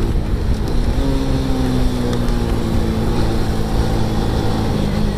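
Motorcycle engine running steadily on the move, its note sinking slowly over a few seconds, with wind noise on the microphone.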